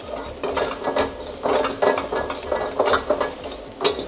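Steel ladle scraping and stirring diced vegetables around a hot metal wok while stir-frying: a quick run of metal-on-metal scrapes, about three a second.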